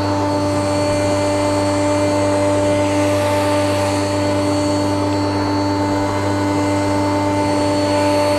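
Hyundai 1400-watt pressure washer running steadily under load, its carbon-brush motor and pump giving a constant hum with several steady tones. Over it is the hiss of the high-pressure water spray striking the solar panel glass.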